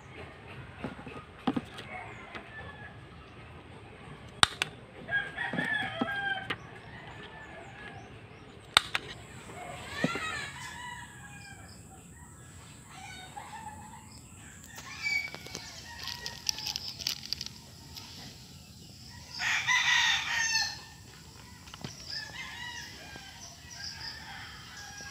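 A rooster crowing twice, each crow about a second and a half long, the second one louder. A few sharp clicks stand out in the first third.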